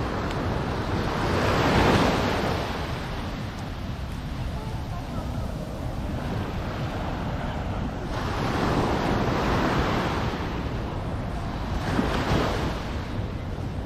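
Ocean waves washing onto a sandy beach, the surf swelling and fading three times: about two seconds in, around nine seconds in, and again near the end. Under it runs a steady low rumble of wind on the microphone.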